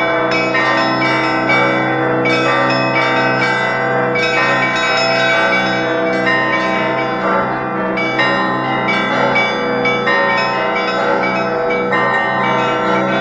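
Russian Orthodox church bells rung by a single bell ringer: a continuous dense peal of many bells at different pitches, struck in a steady repeating rhythm.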